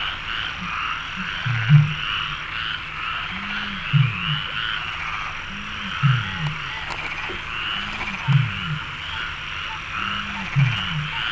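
Eurasian bittern booming: five deep, low booms about two seconds apart, each led by a short softer lead-in note. Behind them runs a continuous, dense high-pitched chorus.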